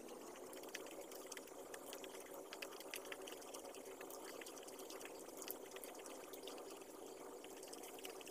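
Faint chewing and small clicks from fingers picking at food, over a steady room hum.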